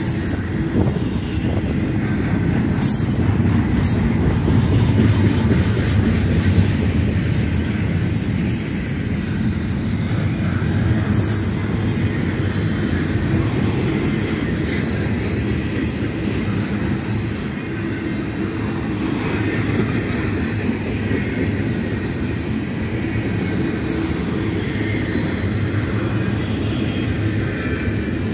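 Double-stack intermodal freight cars rolling past close by: a steady low rumble of steel wheels on rail. Brief high-pitched wheel squeals come a few times in the first half.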